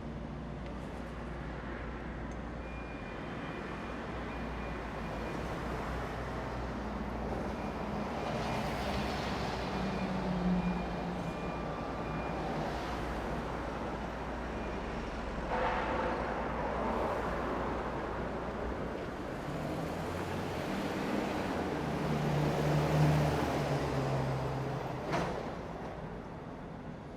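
City road traffic: a steady rumble of cars and trucks, with several vehicles passing louder at intervals, their engines briefly audible as they go by. A single sharp knock near the end.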